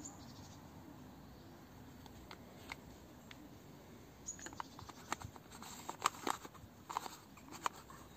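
Handling noise from a metal camera lens and its filter: a string of light clicks and taps that starts about halfway in and comes thickest near the end.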